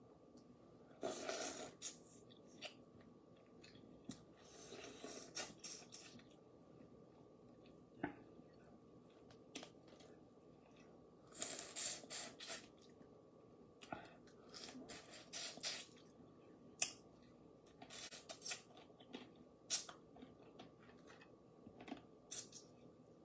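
Quiet sounds of eating spicy boiled crawfish: sharp clicks of shells being cracked and pulled apart, between short airy sniffs and slurps.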